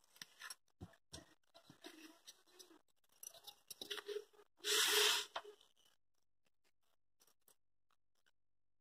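Paper-pattern drafting handled by hand: soft rustles and taps as a cloth measuring tape, a plastic ruler and a pen are moved about on a sheet of brown paper, with one louder scrape of the ruler across the paper a little past the middle. Quiet after that.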